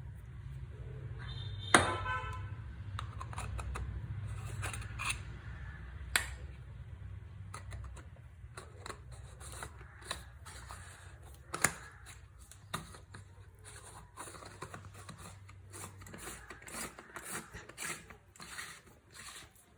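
Clicks, clinks and scrapes of a metal sevanazhi (hand sev press) being handled as it is filled with dough and closed, with one sharp ringing metal clink about two seconds in and a quicker run of small ticks later on. A low steady hum runs underneath and stops near the end.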